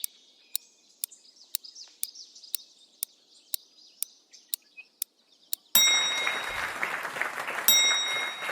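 Quiz-game sound effects: a timer ticking about twice a second over faint birdsong. About six seconds in, a bright chime rings out with a burst of applause and cheering, marking the end of the answer time, and the chime rings again about two seconds later.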